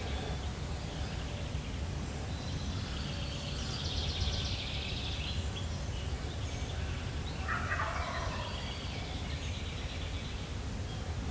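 A wild turkey tom gobbles once, a short rattling call about eight seconds in, over steady low background noise.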